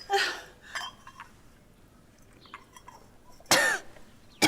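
Faint, sparse clinks of tableware, as of bowls and utensils at a meal. A brief, loud vocal sound with falling pitch comes about three and a half seconds in.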